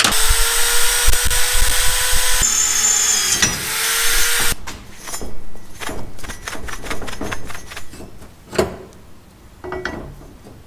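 Corded electric drill running at speed, boring the pre-marked holes in a fish finder graph mount for about four and a half seconds: a steady whine that breaks off once and dips in pitch once under load. A run of clicks and knocks follows as it stops.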